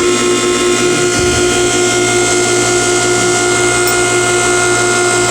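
Dayco K501 hose crimper's hydraulic pump running steadily under the foot pedal as it crimps a ferrule onto a hose, a loud even whine that starts abruptly and cuts off at the end of the stroke.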